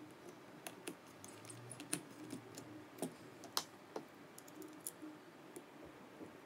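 Faint, irregular small clicks and taps of plastic and small metal parts of a DJI Mavic Pro drone being handled and screwed back together during reassembly. The sharpest clicks come about two seconds in and at three and a half seconds.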